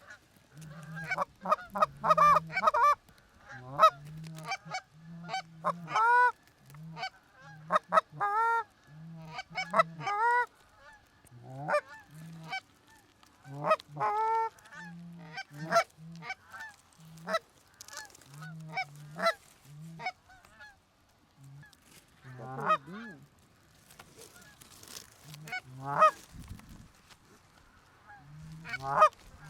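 Canada goose honks and clucks, many short calls in irregular quick clusters.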